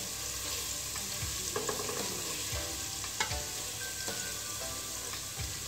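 Crushed garlic sizzling in hot cooking oil in a pot while a silicone spatula stirs it, with a few short scrapes and taps of the spatula against the pan.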